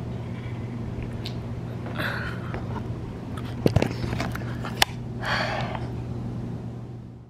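Handling noise from a camera being picked up and moved: rustling and brushing, with a few sharp knocks a little past halfway and one more about a second later, over a steady low hum.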